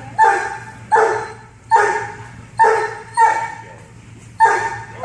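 A dog barking repeatedly: about six sharp barks, roughly one every three-quarters of a second, with a slightly longer gap a little past the middle.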